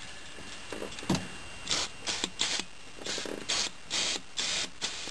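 Aerosol can of brake cleaner sprayed in several short hissing bursts into an electrical connector plug to clean its contacts, with a small knock about a second in.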